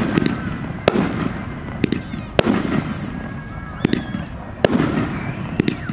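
Fireworks show: aerial shells bursting in sharp bangs about once a second, each trailing off in a low rumble.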